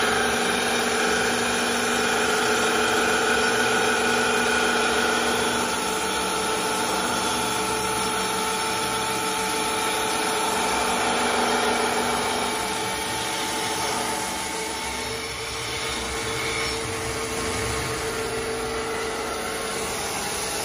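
CNC wood lathe running, its motors humming as a sanding wheel polishes a turning wooden spindle: a steady machine drone with several held tones that fade into a rougher, noisier whir about two-thirds through.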